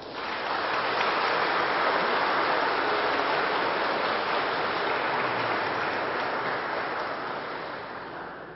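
Audience applauding at the close of a speech, steady at first and dying away over the last second or so.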